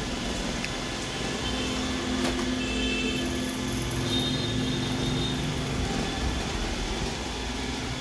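iRobot Roomba i4 robot vacuum running, a steady motor hum with a few faint ticks as it moves about.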